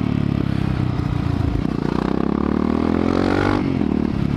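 Honda Falcon 400's single-cylinder four-stroke engine under the rider's throttle: it runs steadily, then its pitch rises as the bike accelerates and drops suddenly near the end at a gear change.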